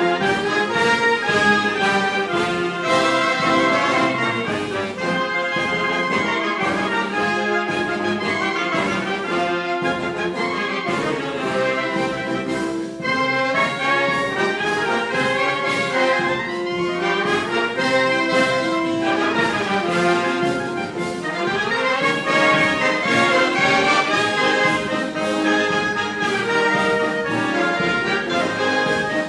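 Orchestral music with brass carrying a melody.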